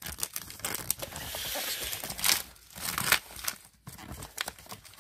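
Thin plastic shrink-wrap being torn and peeled off a cardboard box, crinkling, with a few sharper crackles about two and three seconds in, then quieter handling of the box.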